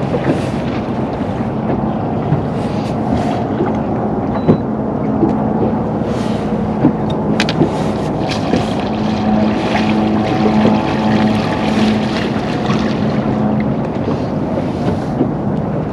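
Boat motor running steadily at trolling speed, a constant hum with wind buffeting the microphone and a few small knocks.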